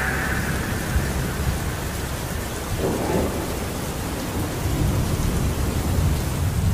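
Steady rain with low thunder rumbling underneath.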